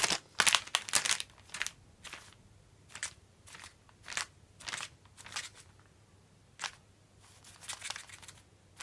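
Thin plastic wrapping crinkling in short, irregular rustles, densest and loudest at the start, then coming more sparsely.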